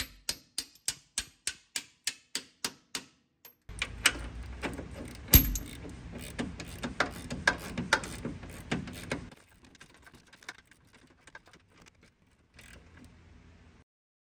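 A hammer tapping a steel suspension pivot bolt through its mount, about three even taps a second, stopping about three seconds in. Then a ratchet and socket clicking and clinking as the nut is run on, with one sharp metal clank about five seconds in.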